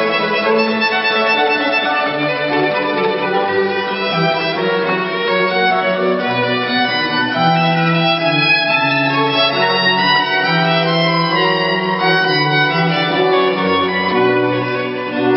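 Live classical chamber music: several sustained lines moving together over a slower bass line, played continuously at a steady level.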